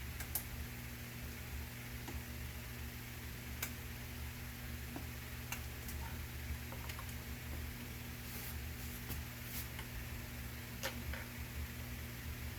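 A steady low hum with a dozen or so short, sharp clicks scattered irregularly through it.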